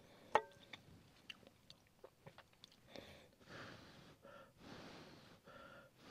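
A fork clicking against a skillet, one sharp click about half a second in, then a person chewing a mouthful of cooked peppers, with soft noisy breaths between bites.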